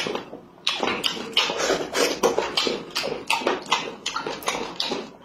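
Close-miked eating sounds of a man chewing and sucking meat off a boiled chicken wing: a quick run of smacking and sucking noises, several a second, after a short lull near the start.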